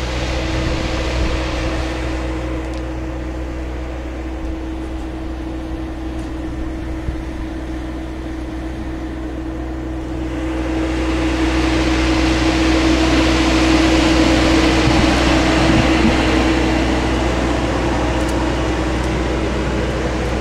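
Steady mechanical hum from a satellite uplink news truck's onboard machinery, with a constant tone over a low drone, growing louder about ten seconds in.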